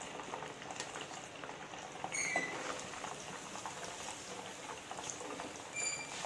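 Hot oil bubbling and crackling steadily as battered prawns deep-fry in a kadai, with two short metallic clinks of a slotted spoon against the pan, about two seconds in and near the end.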